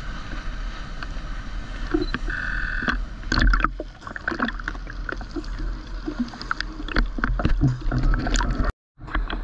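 Water sloshing and splashing against a GoPro camera's waterproof housing held at the water's surface, with many short splashes over a steady low rumble. The sound drops out completely for a moment near the end.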